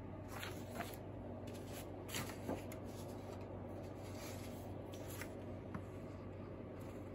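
Sheets of drawing paper rustling and sliding as they are handled and shuffled through in a stack. The noise comes in several short bursts, the loudest about two and a half seconds in, over a steady low hum.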